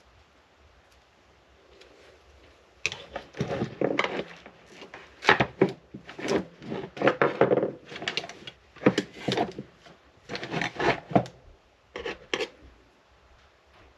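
Irregular clatter and rubbing of small parts and tools being handled on a hard work surface, in short clusters of knocks that start about three seconds in and stop shortly before the end.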